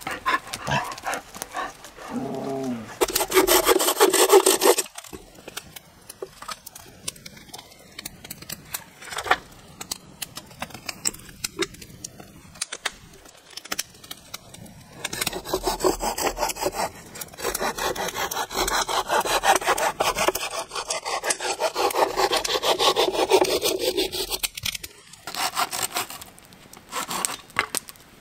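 Saw cutting through wood in rapid back-and-forth strokes, in two long spells with a pause between them.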